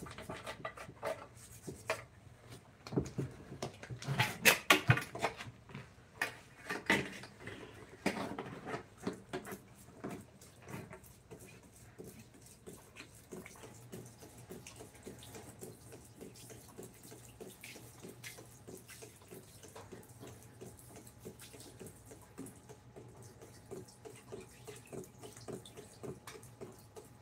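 Repeated knocks and taps, with a cluster of louder ones in the first several seconds, then a long run of light, evenly spaced taps over a low steady hum.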